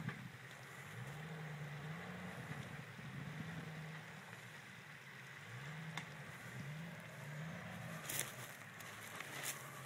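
Land Rover engine faintly revving up again and again in rising pulses as it crawls under load over rough ground, with a couple of sharp clicks near the end.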